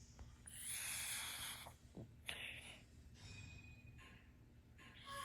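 A white Pekingese snoring in its sleep: a string of noisy, snorting breaths, one every second or two, the longest about half a second in.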